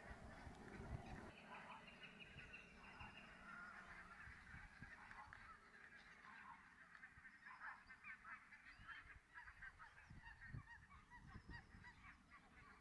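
Greylag geese honking faintly in an irregular run of short calls.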